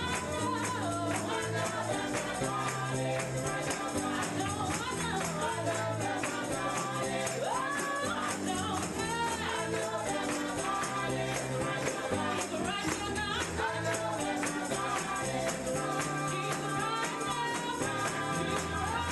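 Gospel music with singing and a steady tambourine rhythm over sustained bass and keyboard-like chords.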